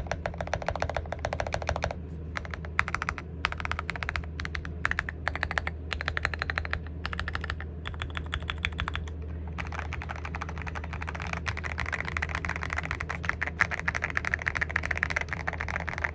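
Mechanical keyboard fitted with Gateron Ink Black V2 linear switches being typed on: quick runs of keystrokes with short pauses between them, then fast, unbroken typing from about halfway through.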